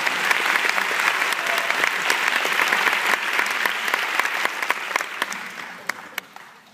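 Audience applauding, a dense clapping that thins out and fades away over the last two seconds or so.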